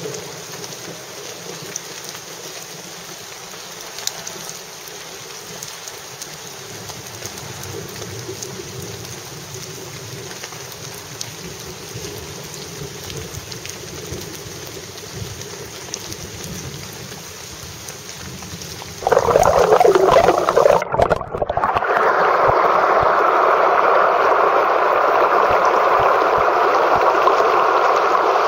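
Faint steady outdoor hiss, then about nineteen seconds in, the loud steady rush of the Hillsborough River's shallow rapids pouring over rocks. The rush breaks off for a moment about two seconds later and resumes.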